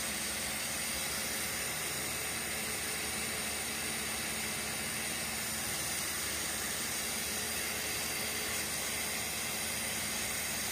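Ronson 8008 butane torch burning with its fuel adjuster about halfway open: a steady hiss of gas and flame.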